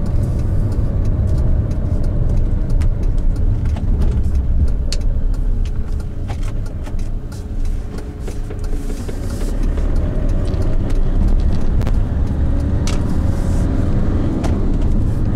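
Car driving along a road: steady low rumble of engine and tyres, with scattered light clicks and rattles.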